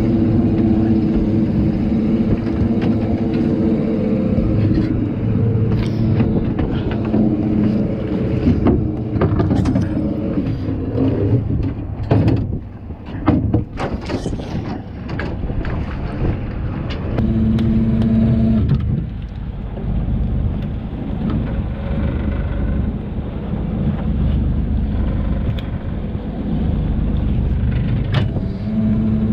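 A motor engine running steadily, with a spell of knocks and clatter in the middle and a short steady hum that comes and goes twice.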